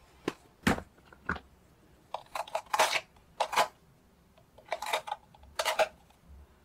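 Kitchen dishes and containers being handled and set down around a stainless steel mixing bowl: three sharp taps in the first second and a half, then several short bursts of clattering knocks.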